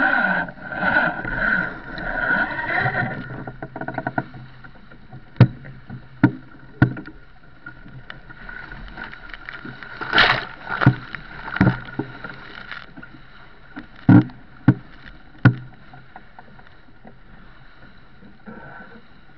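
Sailing yacht pounding through heavy breaking seas: a steady rush of wind and water, loudest in the first few seconds. From about five seconds in comes a run of sharp, separate thumps as waves and spray strike the bow.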